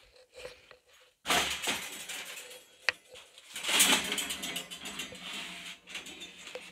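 Irregular rustling, scraping and knocking of someone moving about with a hand-held camera, with one sharp click about three seconds in.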